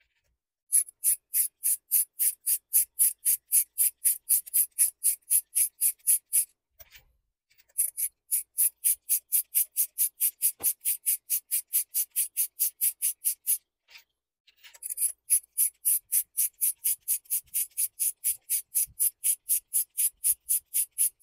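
Ratchet pawl clicking steadily, about six clicks a second, as a ratchet on an extension and spark plug socket runs new spark plugs down into the cylinder head until they start to tighten. The clicking comes in three long runs with short pauses about a third and two thirds of the way through.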